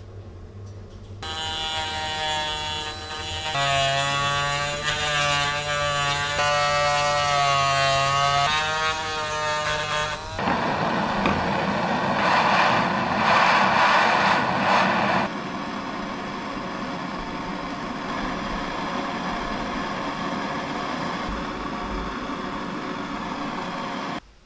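Gas torch burning: a wavering, buzzing whistle for the first several seconds, then a loud rushing hiss of the flame from about ten seconds in, settling to a steadier, quieter hiss that cuts off near the end.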